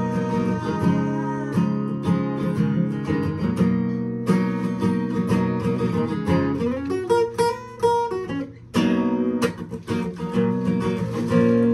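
Acoustic guitar strummed in chords with no singing. About two-thirds of the way through the strumming thins out to a few single notes left ringing, then full strummed chords come back.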